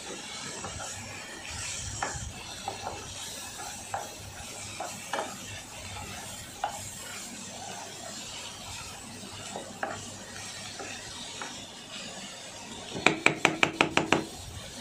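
A spatula stirring and scraping chicken mince in a pan, with a faint steady sizzle and scattered scrapes and clicks. Near the end come about eight quick ringing taps of the utensil on the pan.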